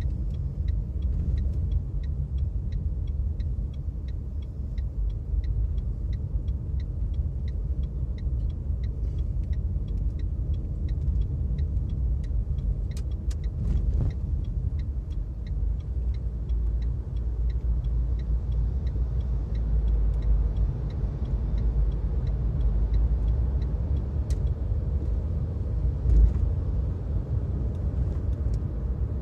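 Steady low road and engine rumble of a car being driven, heard from inside the cabin. A light regular ticking, about one and a half times a second, stops a few seconds before the end, and there is a single louder bump near the end.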